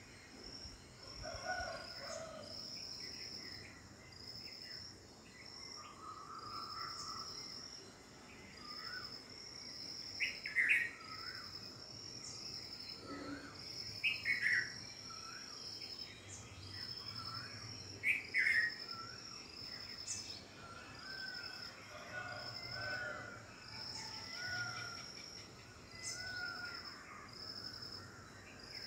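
Mixed background chorus of several birds calling over an insect's high, steady pulsing chirr. Midway come three louder rising bird calls, about four seconds apart.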